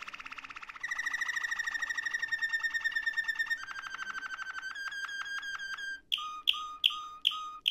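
Domestic canary singing: long, fast trills that switch to a new pitch and speed every couple of seconds, then break into separate sharp whistled notes about three a second near the end.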